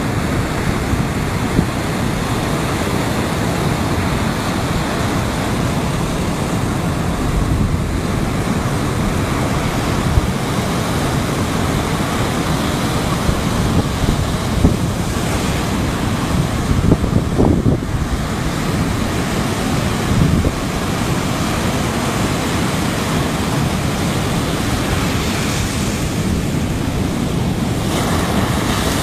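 Rough surf breaking on a sandy beach: a steady rushing wash of waves, with wind gusting on the microphone.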